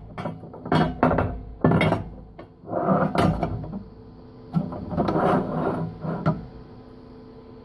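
Irregular bursts of scraping and rubbing, several in a row and then dying away about six seconds in, over a steady low electrical hum.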